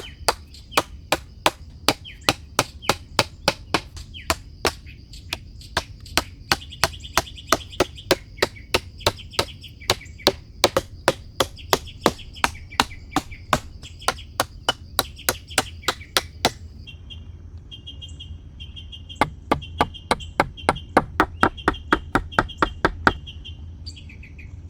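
Rapid, evenly spaced strikes of a hand tool chopping or hammering, about three a second, stopping for a couple of seconds past the middle and then starting again.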